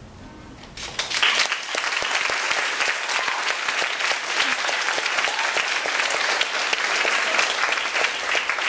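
Audience applauding: a crowd's clapping breaks out suddenly about a second in and keeps going, loud and steady.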